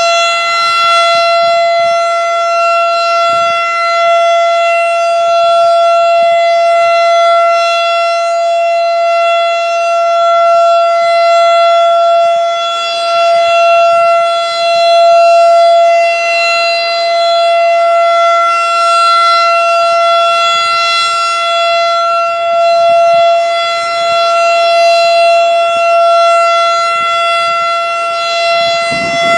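Federal Signal STH-10 single-tone rotating outdoor warning siren sounding the steady Alert signal: one held pitch that swells and fades every two to three seconds as the siren turns.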